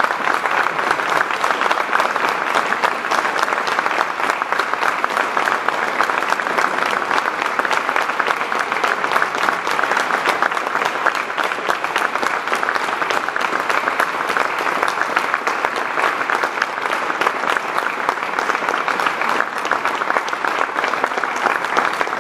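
An audience applauding with steady, dense clapping that does not let up.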